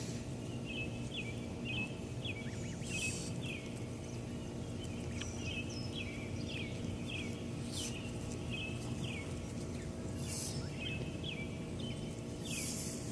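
Goslings peeping: short, high, downward-sliding peeps repeated one or two a second over a steady low background rumble, with a few brief hissy bursts.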